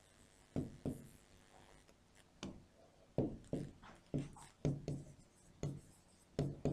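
Marker pen squeaking and scraping on a whiteboard as words are written: about a dozen short strokes in quick runs, with a pause of about a second and a half near the start.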